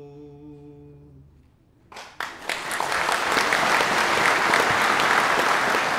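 A man's unaccompanied sung final note holds and ends about a second in; after a brief hush an audience bursts into applause that builds and keeps going.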